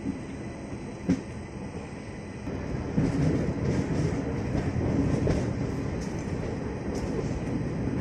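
Amaravati Express passenger train running along the track, heard from on board: a steady rumble with scattered wheel clicks and a sharp knock about a second in, growing louder about three seconds in.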